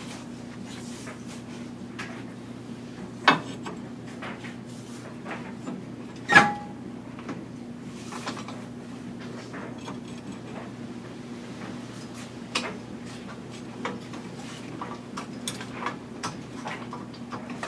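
Metal hand tools and suspension hardware clinking and clanking as they are handled, in scattered light clicks with two louder clanks about three and six seconds in, the second ringing briefly.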